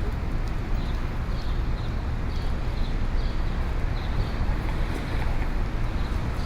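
Busy city street ambience: a steady low rumble of traffic, with faint regular ticks about twice a second over it.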